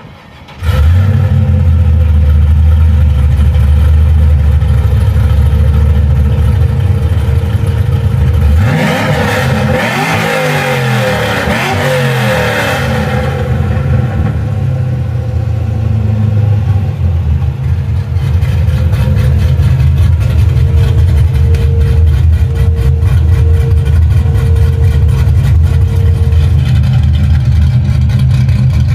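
LS1 5.7-litre V8 in a 1964 Chevy II running at idle, blipped up and down a few times about a third of the way in, then settling back to a steady idle.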